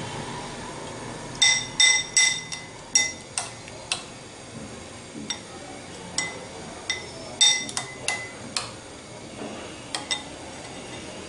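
Metal spoon clinking against a glass bowl as potato balls are turned in beaten egg: a quick run of sharp ringing taps starting about a second and a half in, then scattered taps through the rest.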